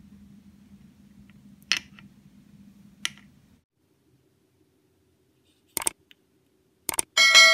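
A faint low hum with two sharp taps of small utensils on the miniature setup in the first half. Near the end, a subscribe-button sound effect: quick mouse clicks, then a loud, ringing bell ding that starts to fade.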